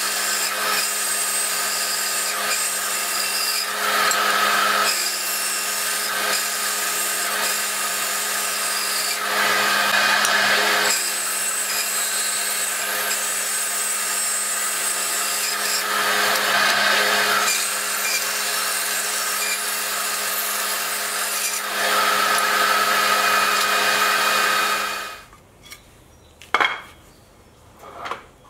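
Band saw running steadily while ripping walnut and purpleheart boards into strips, the cutting noise swelling several times as the blade goes through the wood. It stops abruptly near the end, followed by a few light wooden knocks as cut strips are set down.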